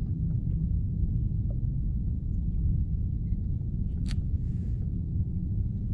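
Steady low rumble of wind buffeting the microphone, with one sharp click about four seconds in.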